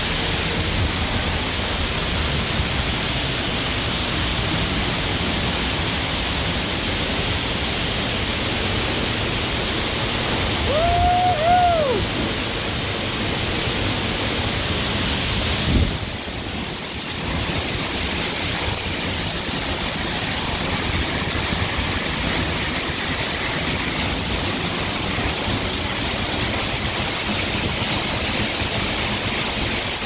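Waterfall rushing: a loud, steady hiss of falling water heard up close, from the trail behind the curtain of the falls. A short two-note call sounds about eleven seconds in.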